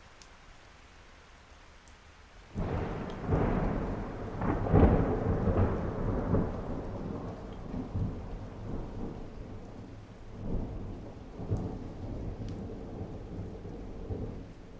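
Rain falling steadily, then a sudden clap of thunder about two and a half seconds in that rolls on as deep rumbling. The rumble is loudest a couple of seconds after it starts, swells twice more later on, and eases near the end.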